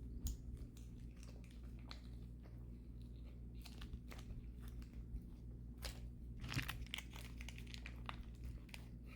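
A person chewing mouthfuls of battered orange chicken close to the microphone, with scattered short mouth clicks and a slightly louder cluster about six and a half seconds in.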